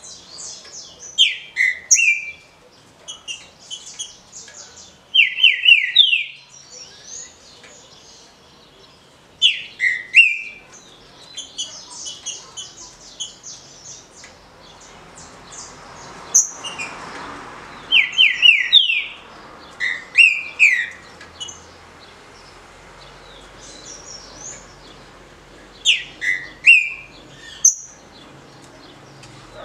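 Green-winged saltator (trinca-ferro, Saltator similis) singing its short, easy song: loud whistled phrases of a few sliding notes, repeated every few seconds, with softer high chirps between phrases.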